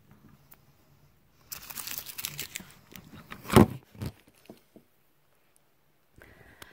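Something crinkly, such as plastic or paper, being handled: about a second and a half of crinkling and rustling, then a sharp knock and a smaller one.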